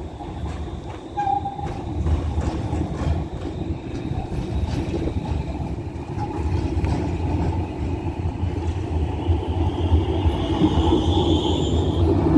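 Tram running past on street track: a steady low rumble of motors and wheels that grows louder, with a run of light clicks in the first few seconds and a high thin whine near the end.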